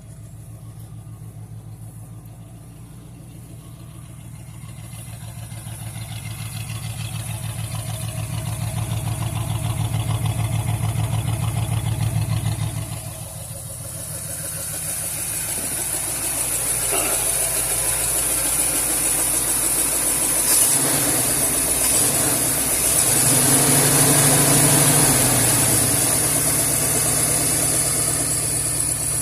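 Ford 351 Windsor V8 with an RV cam idling with a constant rhythmic "wup wup wup" in time with engine speed; it runs like a dead cylinder, which the owner has not yet checked with a compression test. The level swells and drops a few times.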